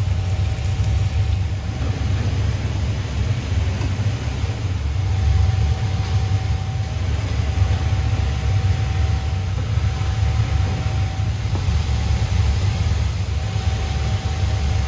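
Steady low mechanical rumble with a hiss, and a faint steady high whine that drops out now and then.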